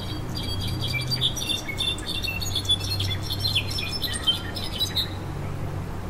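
A brown-backed solitaire (jilguero) singing a fast, tumbling run of high whistled notes that stops about a second before the end.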